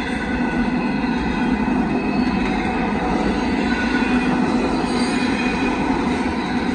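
Intermodal freight train cars rolling past at close range: a loud, steady rumble with steady high tones ringing over it and no let-up.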